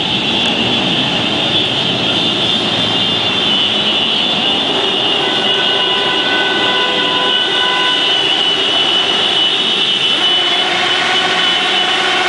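Many motorcycle engines running together as a large group of bikes rides slowly by, a steady loud mass of engine noise. A held tone sounds for a few seconds from about five seconds in.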